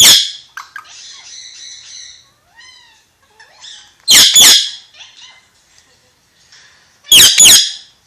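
Ringneck parakeet squawking: loud double squawks at the start, about four seconds in and near the end, with soft chirps and short whistled notes between them.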